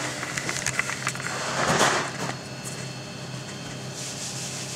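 Lamb brains being dredged by hand in a plate of flour: soft patting and rubbing, with a few light taps near the start and a louder rustle about two seconds in, over a low steady hum.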